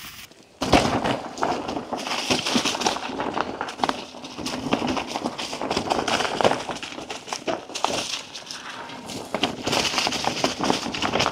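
Mountain bike rolling down a rocky dirt trail: tyres crunching over dirt and rocks with a dense stream of small clicks and rattles, starting abruptly about half a second in.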